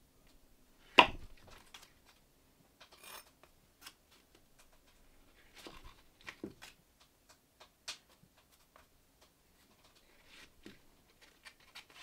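A knife working butter out of its paper wrapper and spreading it on toast: scattered light scrapes and clicks, with brief crinkling of the wrapper. A single sharp knock about a second in is the loudest sound.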